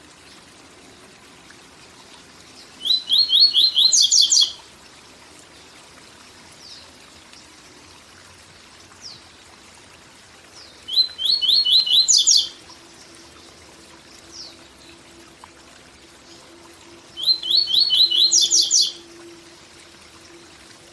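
Papa-capim (a Brazilian seedeater) singing its 'tui tui zel zel' song: three short bursts of rapid repeated notes that climb into higher trills, each about a second and a half long and several seconds apart. A steady waterfall rush runs underneath.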